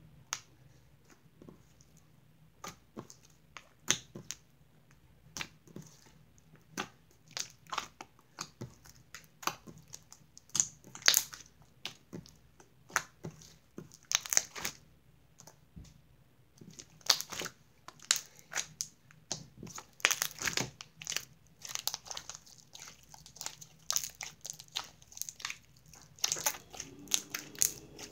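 Blue slime being kneaded, squeezed and stretched by hand as soft white clay is worked into it to make butter slime. It gives irregular sticky clicks and crackling pops, several a second, louder in some stretches than others.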